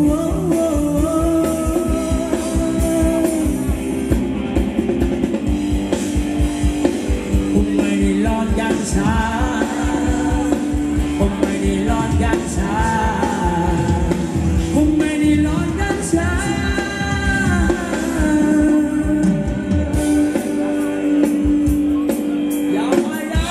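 Live band playing upbeat Thai ramwong dance music: a steady drum beat under long held notes, with a voice singing the melody. The drum beat drops out for a few seconds near the end.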